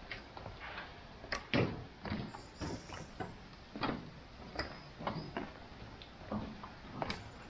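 Footsteps on stone steps: a string of uneven footfalls and scuffs, a few heavier than the rest.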